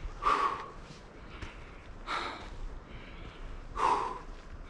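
A hiker breathing hard: three loud breaths about two seconds apart.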